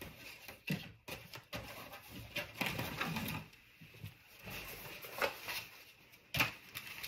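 Scattered clicks, knocks and rustling as objects are handled and moved around while a box of rhinestones and other embellishments is fetched.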